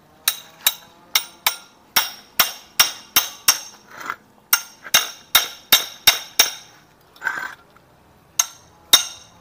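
A hammer striking metal over and over, about two to three sharp ringing blows a second. The blows pause briefly with a short scrape, then resume near the end.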